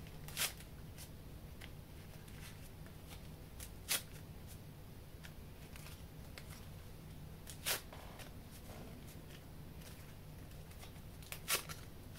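Foil alcohol prep pad packets being torn open and handled in gloved hands: four short, sharp crinkles a few seconds apart, over a faint steady hum.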